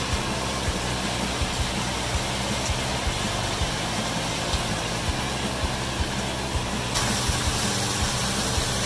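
Pieces of marinated pork sizzling in a nonstick frying pan, a steady hiss over a low hum with soft thuds underneath; the sizzle changes in tone about seven seconds in.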